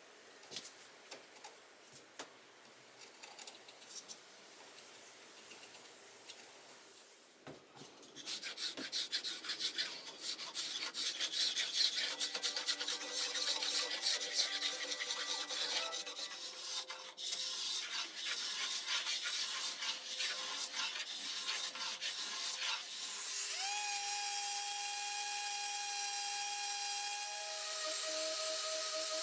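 Hand tools scraping old paint off a wooden chair: faint picking scratches at first, then from about 8 seconds in, fast, loud strokes of a pull scraper rasping over the wood. About 23 seconds in, a random orbit sander spins up with a short rising whine and runs steadily on the wood.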